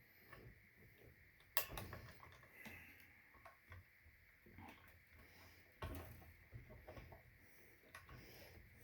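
Quiet handling noise from work on an electric guitar's bridge hardware while a detuner is being fitted: scattered small clicks and ticks, with two sharper knocks, about a second and a half in and again near six seconds.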